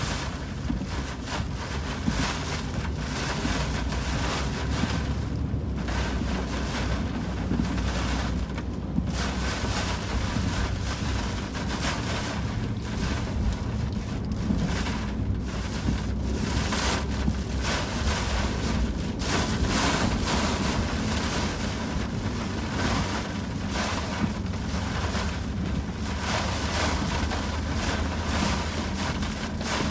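Hurricane wind and rain buffeting a car as it drives along a wet, flooding road, heard from inside the cabin. The tyres hiss through the water under a low, steady rumble, and the noise surges in gusts.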